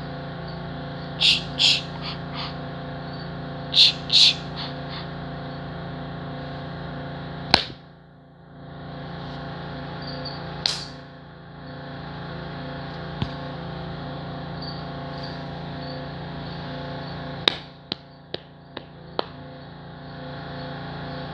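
A person making short hissing mouth noises, two pairs in the first few seconds, then a few sharp clicks scattered later, over a steady electrical hum.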